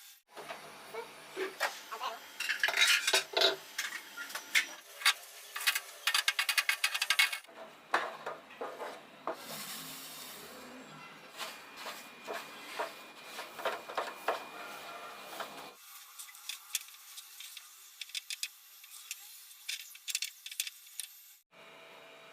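Metal spoon stirring and scraping in a cooking pan, with quick runs of clinks and scrapes. The sound changes abruptly a few times, as if from cut-together clips.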